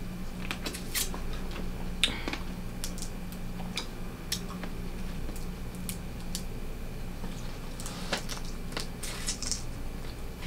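Hands breaking and picking apart steamed blue crab shells: scattered small cracks and clicks, over a steady low hum.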